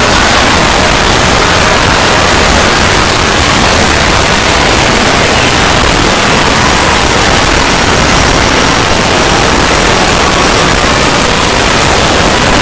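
Loud, steady static-like hiss, an even rushing noise that doesn't let up, with faint thin tones in it.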